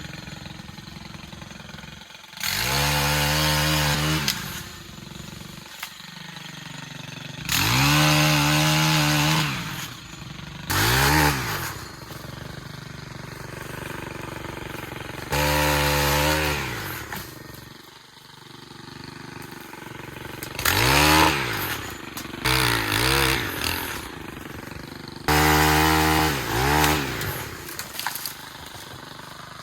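Stihl pole saw revved hard about seven times in short bursts of one to two seconds, its pitch climbing and falling, and dropping back to a lower steady running sound between bursts as branches are cut.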